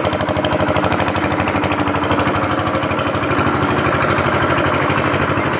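A small engine running steadily with a rapid, even chugging.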